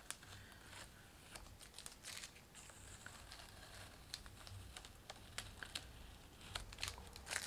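Washi tape being peeled slowly off the edge of a watercolor sketchbook page: faint, scattered crackling ticks.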